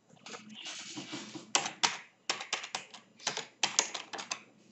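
Computer keyboard being typed on: a quick, uneven run of key clicks, some fifteen keystrokes, starting about a second and a half in.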